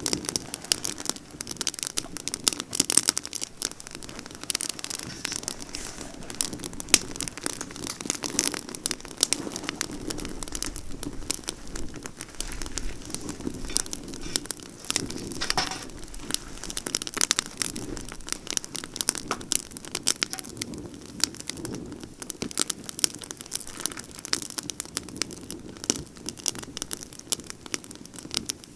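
Campfire of pine branches burning briskly: dense, irregular crackling and sharp pops over a steady low rush of flame.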